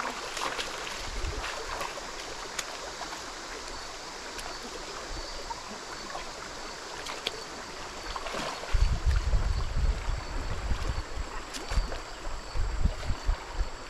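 Stream water running steadily over shallows, with scattered small splashes of someone wading and groping in ankle-deep water. From about nine seconds in, irregular low rumbling buffets come in and are the loudest sound.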